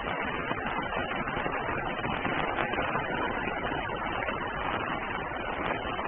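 Rain falling steadily on an umbrella: a dense, even patter that neither builds nor fades.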